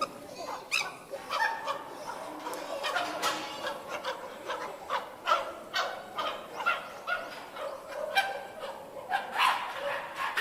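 Several chimpanzees screaming: a rapid run of short, sharp, falling calls, often overlapping, with no let-up.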